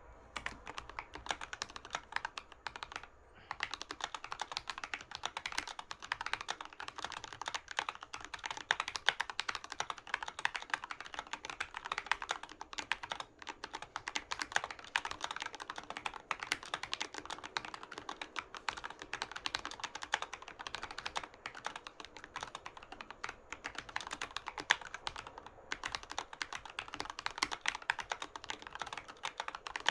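Steady, fast typing on a Keychron K6 mechanical keyboard with linear Gateron Red switches and tall SA-profile keycaps: a continuous run of quick key clacks. There is a short pause about three seconds in.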